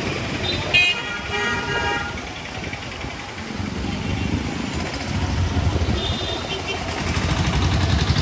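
Busy street traffic with vehicle horns: a short toot about a second in, a longer held horn note just after it, and a brief beep near the end, while engine noise grows louder over the last few seconds.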